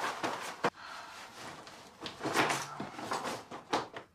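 Clothing rustling and swishing as a man quickly strips off his shirt and trousers, in a series of short swishes with a sharp click about two-thirds of a second in.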